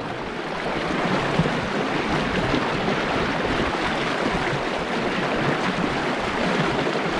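Mountain river water flowing, a steady even wash of noise.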